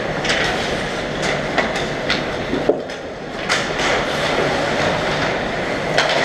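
Ice hockey play: skates scraping on the ice and sharp clacks of sticks and puck over a steady arena rumble, with the loudest crack near the end.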